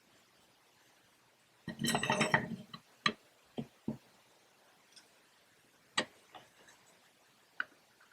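A short rattle of about a second, followed by a scattering of separate knocks and clicks, like hard objects being handled and set down.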